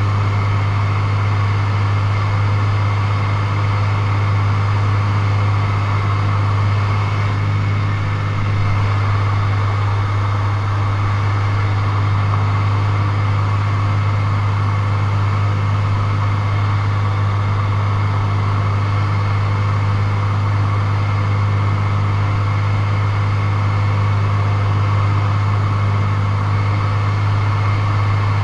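Single-engine light aircraft's piston engine and propeller droning steadily as heard inside the cockpit, a strong low hum that holds constant in pitch and loudness.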